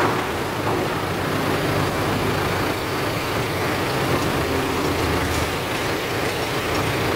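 Isuzu Rocky six-cylinder diesel engine of a farm truck running steadily while its hydraulically raised tipper bed dumps a load of cut sugarcane.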